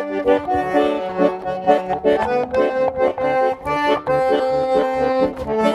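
Accordion playing a tune: a melody in short notes over held chords and pulsing bass notes.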